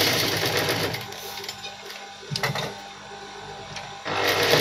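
Industrial sewing machine running in a fast burst of stitching, stopping about a second in and starting up again near the end.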